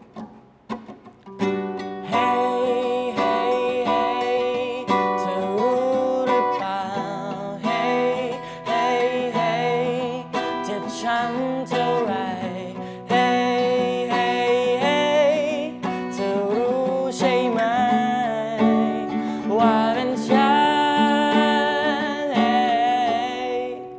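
A steel-string acoustic guitar is strummed while a man sings a melody over it. The playing starts about a second and a half in.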